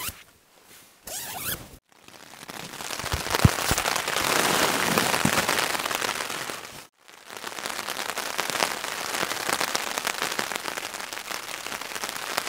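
A tent door zip drawn briefly about a second in, then heavy rain pattering on the nylon flysheet of a Vango Xenon UL 2 tent, heard from inside. The rain swells up and dies away, breaks off suddenly about seven seconds in, and comes back steady.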